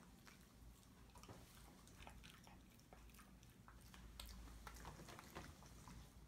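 Shiba Inu chewing a piece of cake: faint, irregular clicks and smacks of its jaws and mouth, coming thicker about four to five seconds in.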